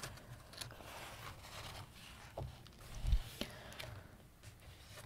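A page of a large glossy book being turned and smoothed flat by hand: paper rustling and sliding, with a few light clicks and a soft thump about three seconds in.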